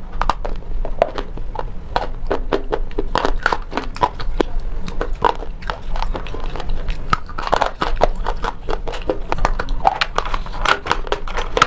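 Slate pencils being bitten and chewed close to a clip-on microphone: dense, rapid crunches and snaps of the chalky sticks, several a second.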